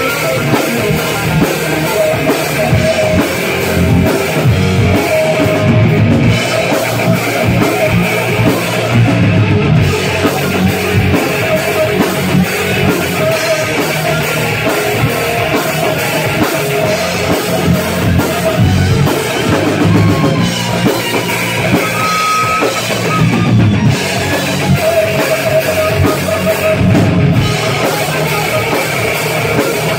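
Rock band playing live and loud: electric guitars over a drum kit, in a heavy metal style, without a break.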